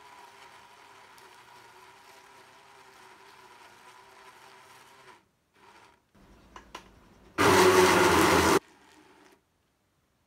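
Countertop blender pulsed once for about a second, its motor chopping a jug of minced pork, garlic and leek for wonton filling. A couple of small clicks come just before it, and a faint steady hum runs through the first half.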